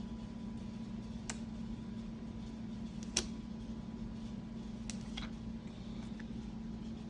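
A few sharp computer-mouse clicks, four in all, the loudest about three seconds in, over a steady low hum.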